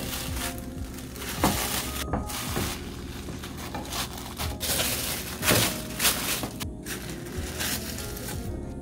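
Plastic bag lining crinkling and a wooden spatula scraping pieces of sticky rice cake off a baking tray, in irregular rustles and scrapes, over background music.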